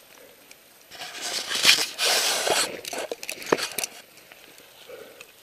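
Ice tools and crampons striking and chipping steep waterfall ice: a burst of crunching and scraping about a second in, with sharp strikes, the loudest near two seconds and again near three and a half seconds.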